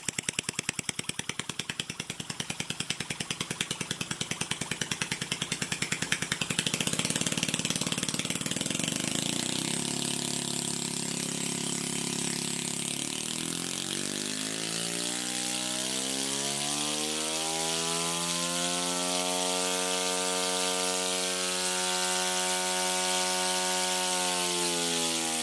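Scroll Technologies scroll compressor running opened up with its scrolls exposed, pumping with a rapid, even chatter for about the first six seconds. It then smooths into steady running with a pitched hum that strengthens over the last part.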